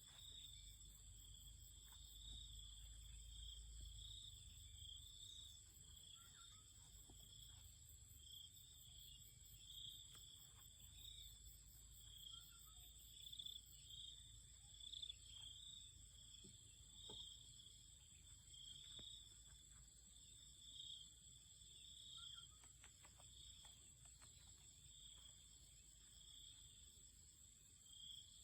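Near silence, with a faint, steady, high-pitched insect chirring.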